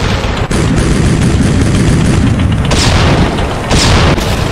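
Battle sound effects of explosions and tank cannon fire: a continuous heavy rumble with a sharp blast about half a second in, and two more near three and four seconds in, over scattered gunfire.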